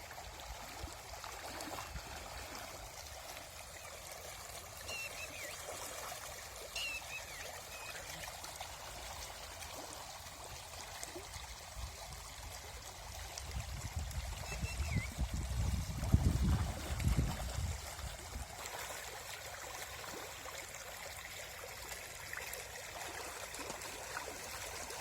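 Steady rush of flowing river water. A low rumble swells up about halfway through and dies away a few seconds later.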